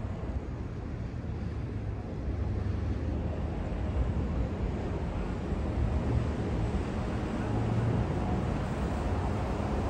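New York City subway train on the 4 line running, a steady rumble and rush of noise that grows louder about two seconds in.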